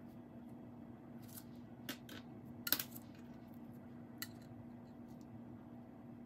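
Small chunks of blended fire glass clinking against each other as they are picked from a pile, a few light, sharp clicks spread over several seconds with a small cluster in the middle, over a steady low hum.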